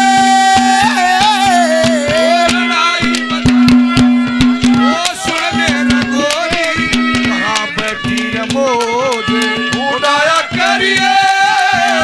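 Haryanvi ragni music played live: a wavering melody over a steady drone, with fast hand-drum strokes throughout.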